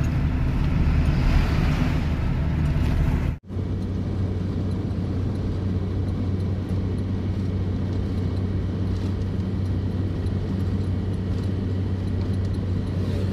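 A truck's engine running steadily at cruising speed, heard from inside the cab, with road noise. In the first three seconds an oncoming truck passes with a rush of noise, then the sound drops out for an instant and the even engine hum continues.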